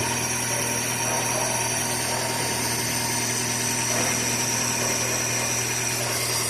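Chevrolet Corsa Classic engine idling steadily with the alternator charging. The earlier noise from the accessory belt is gone.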